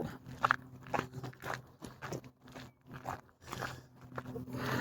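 Footsteps crunching on a trail while walking: soft, irregular crunches about twice a second, over a faint steady low hum.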